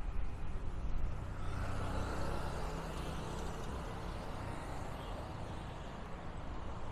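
Street traffic noise, with motorcycles passing along the road.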